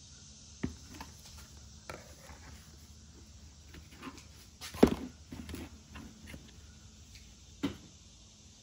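A few scattered knocks and light clatter over a low steady hum, the loudest knock about five seconds in.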